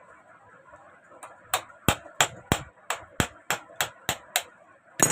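A hammer tapping a steel nail held as a punch against the stop-motion knob of a sewing machine's handwheel, to knock the knob loose so it can be unscrewed. There are about a dozen sharp metallic taps at roughly three a second, starting about a second in, and one louder strike at the end.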